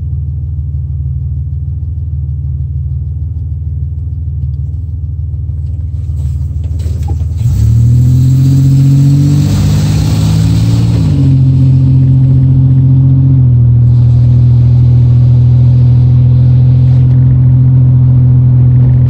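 Car engine idling at a low, steady pitch, then about seven seconds in it revs up and gets louder as the car pulls away. The pitch rises, then settles into a steady, louder drone while cruising.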